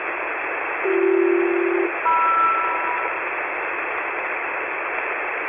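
HF radio SELCAL call: two chords of two steady tones each, about a second apiece, the first pair low and the second pair higher, sent by the ground station to alert the aircraft's crew. A steady hiss of HF single-sideband static runs underneath.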